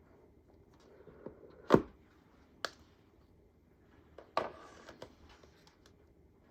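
Handling sounds from unboxing: three sharp knocks or clicks, the loudest about two seconds in, with light rustling after the last one near the end.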